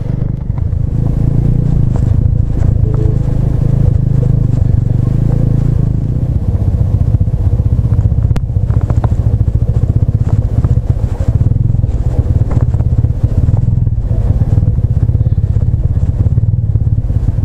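TVS Apache RTR 200's single-cylinder engine running steadily as the motorcycle rides through shallow meltwater on a rough track.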